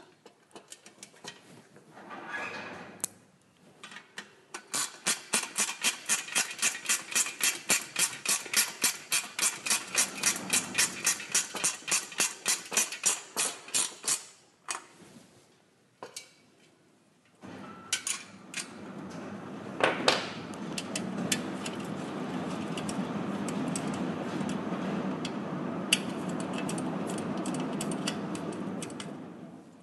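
Hand ratchet spanner clicking steadily, about four to five clicks a second, as the 10 mm nut holding the front mudguard to the fork is tightened. After a short pause a steadier scraping noise with a few sharp clicks follows as the work goes on.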